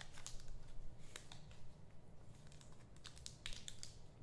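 Trading-card packs and cards being handled and opened: irregular soft crinkles and small clicks of wrapper and card stock.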